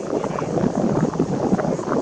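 Wind buffeting the camera's microphone: a steady, uneven rushing noise with no engine tone in it.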